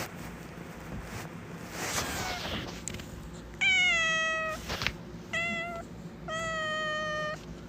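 A cat meowing three times: two long, even meows with a short one between them, each dropping slightly in pitch at the end.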